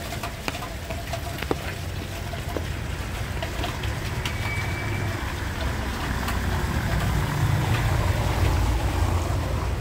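Low rumble of a motor vehicle's engine in the street, swelling about seven seconds in, with a few light clicks.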